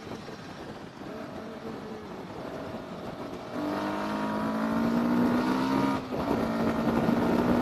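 Yamaha R15 V3's 155 cc single-cylinder engine under the rider. About halfway through, the throttle opens and the engine note gets louder and climbs. It breaks off briefly near the end for a gear change, then pulls on.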